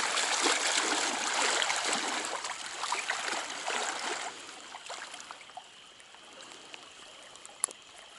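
Trout stream water running and trickling, loud for about the first four seconds, then dropping abruptly to a quieter trickle. A single sharp click comes near the end.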